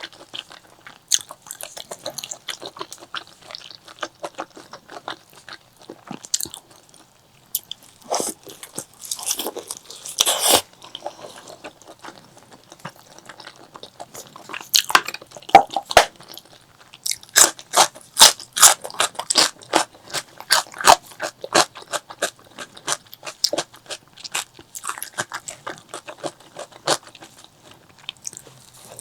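Close-miked mouth sounds of eating spicy pork leg curry: chewing with wet clicks and crunching bites. The crunching grows dense and rapid a little past the middle.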